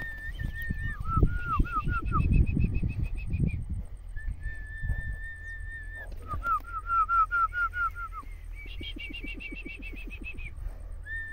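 Whistled phrases, several times over: a long held note, then a run of quick warbling notes and a higher trill. Low knocking and rustling noise underneath at times.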